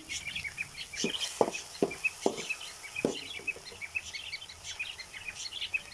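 Small birds chirping over and over in the background, with a hen clucking four or five times between about one and three seconds in.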